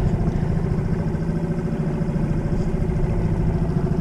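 Small dinghy outboard motor running steadily at low speed.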